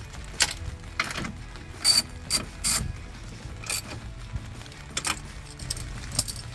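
Hand socket ratchet on an extension clicking in short, irregular bursts as it is swung back and forth, snugging down the towing mirror's mounting nuts inside the truck door.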